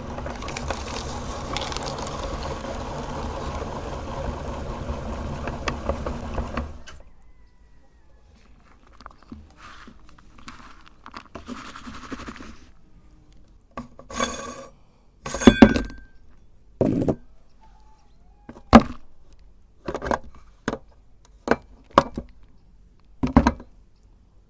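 Meat grinder running steadily while it grinds a chocolate bar, stopping about seven seconds in. It is followed by short scrapes and a string of sharp knocks and clacks, the last several the loudest.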